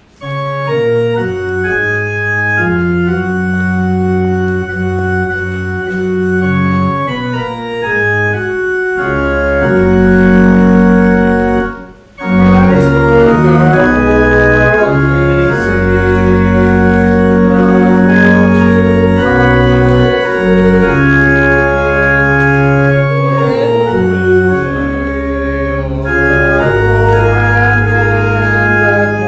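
Organ playing sustained chords in hymn-like phrases, with a short break about twelve seconds in.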